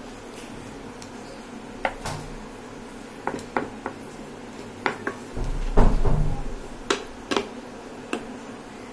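Spatula clacking and scraping against a wok while noodles and scrambled egg are tossed and stirred: a string of sharp taps, with a heavier low rumbling knock of the pan about halfway through. A faint steady hum lies underneath.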